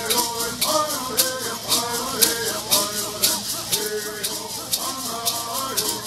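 Mohave bird songs: teenage boys' voices singing a chant-like melody, accompanied by gourd rattles shaken in a steady, even beat.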